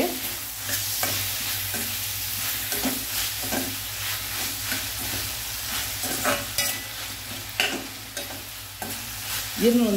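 Sliced onion, tomato and green peas sizzling in hot oil in a stainless steel kadai, stirred with a spoon that scrapes irregularly against the pan, while the tomato softens and the peas cook.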